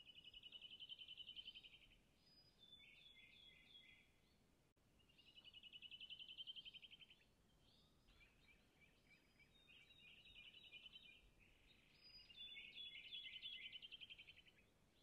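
Faint bird song: a rapid trilling phrase sung three times, near the start, in the middle and near the end, with softer short chirps between.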